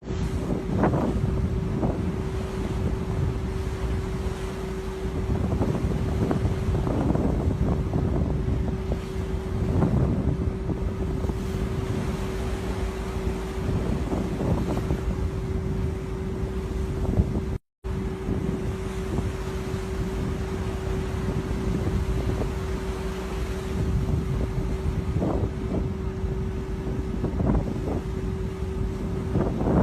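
Wind rushing and buffeting on the microphone over a continuous low rumble and a steady single-pitch hum, with a few louder gusts; the sound cuts out completely for a moment a little past halfway.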